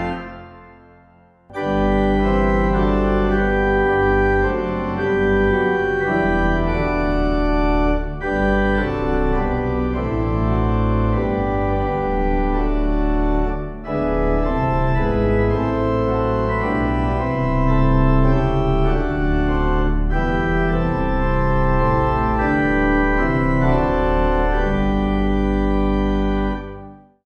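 Organ music: slow, held chords that begin about a second and a half in and stop sharply at the end.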